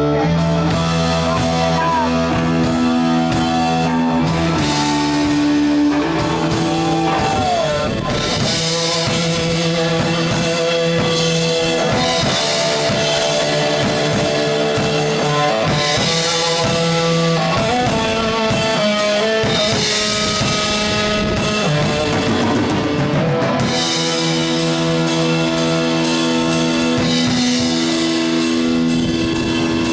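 Live rock band playing: electric guitars, bass guitar and drum kit, with a lead guitar bending notes. Cymbals ring loudly through the middle stretch, easing back near the end.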